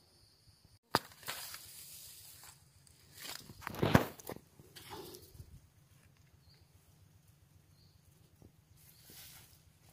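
Rustling of grass and dry leaves as someone moves through the undergrowth and handles the plants. It comes in several short bouts, loudest about four seconds in, and is mostly quiet after about six seconds.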